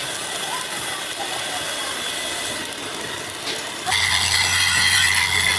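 Steady workshop machine noise, then a louder machine starts suddenly about four seconds in, running with a low hum and a steady high whine.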